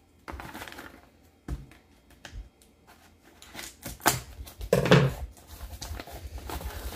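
Scissors cutting open the packing tape on a cardboard shipping box, with crinkling tape and cardboard handling: a series of uneven clicks and scrapes, loudest about four to five seconds in.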